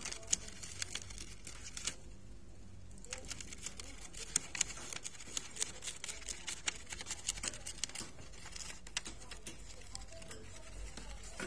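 A small pet parrot nibbling and tearing at the paper lining its cage floor: an irregular run of small crackling clicks and paper crinkles, with a short pause about two seconds in.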